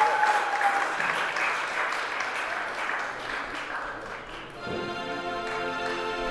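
Congregation applauding, the clapping slowly fading, then instrumental music with sustained notes starts suddenly about four and a half seconds in.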